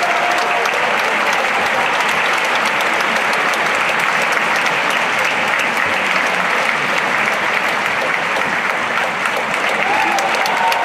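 Large theatre audience applauding steadily, a dense, even wash of many hands clapping.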